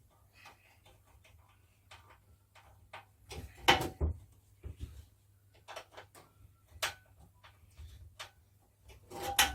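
Screws being tightened and plastic drum parts handled while assembling a felting drum: scattered light clicks with two louder knocks, one a little over a third of the way in and one near the end.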